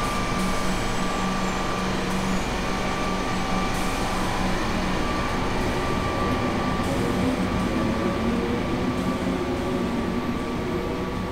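Comeng electric suburban train pulling out and running away from the platform: steady electrical hum and wheel noise, with traction-motor whine rising in pitch in the second half as it gathers speed, fading slightly near the end.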